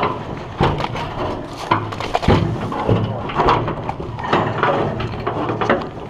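Irregular crunching and knocking, several sharp hits a second: footsteps and handling as players carry a 55-gallon drum along.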